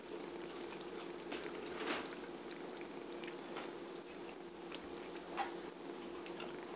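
Quiet mouth sounds of people eating: chewing and soft lip smacks, with a few short clicks, over a steady low hum.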